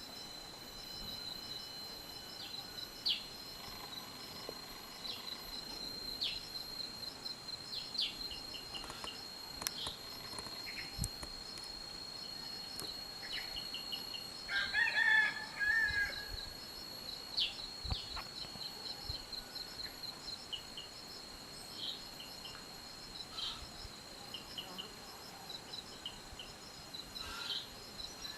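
Outdoor birdsong over a steady high-pitched insect drone with fast trilling ticks. Sharp, short downslurred chirps repeat every second or two, and a louder, lower bird call lasts about a second and a half around the middle.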